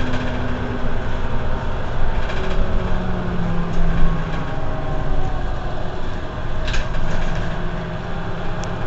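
Mercedes-Benz Citaro C2 Euro 6 city bus running, its engine note shifting in pitch over a steady low hum, with a couple of short clicks.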